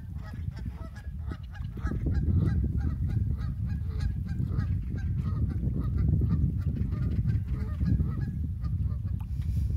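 A flock of geese honking in a quick run of short calls, two to three a second, dying away near the end, over a heavy low rumble of wind on the microphone.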